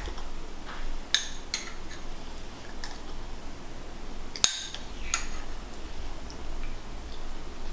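A spoon clinking and scraping against a small glass bowl in a scattering of light taps, with one sharper clink about four and a half seconds in.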